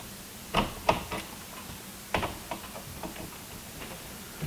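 Irregular sharp clicks and taps of hand tools and wire being worked inside a metal breaker panel, about eight over four seconds, the loudest about half a second and a second in.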